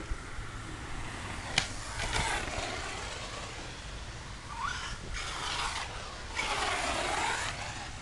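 Electric RC truck with an 1100 kV brushless motor driven in three short bursts of acceleration, its motor whine rising and its tyres scrabbling over hard dirt; a sharp knock comes about a second and a half in.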